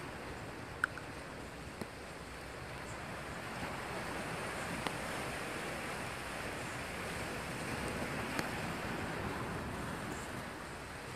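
Sea surf washing and breaking over a rocky shore, a steady rushing that swells a little midway and eases again, with a few brief faint clicks.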